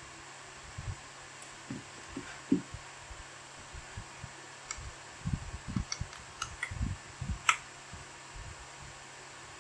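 Keys being typed on a Keychron K8 mechanical keyboard modded with foam, tape and lubed stabilisers: muted, low keystrokes with a few sharper clicks, scattered at first, then a quicker run of them in the middle before they stop.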